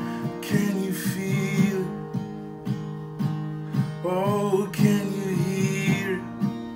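Acoustic guitar strummed in a steady rhythm, with a short sung vocal phrase about four seconds in.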